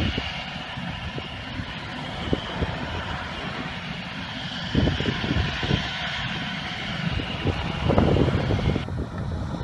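Airbus A319's jet engines running at low power with a steady whine and hiss as it taxis. Gusts of wind buffet the microphone, strongest about five and eight seconds in.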